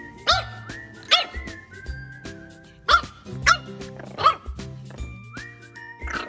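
Background music with about six short, sharp yips from one-month-old French bulldog puppies scattered over it.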